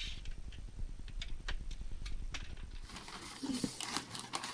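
A few light knocks and clicks over a low rumble, then, from about three seconds in, the rustle and crinkle of paper packing as a cardboard parcel is opened by hand.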